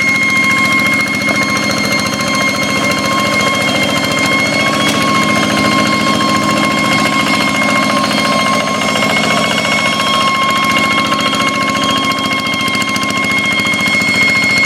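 Hand tractor's blue Kubota single-cylinder diesel engine running steadily with rapid even firing, and a steady high-pitched whine over it.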